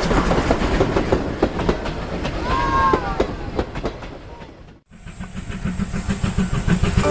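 Steam-hauled train running, with a fast run of rail clicks and knocks that fades down to a cut about five seconds in; a short pitched tone sounds briefly near the middle. After the cut comes a steadier train rumble with a faint high whine.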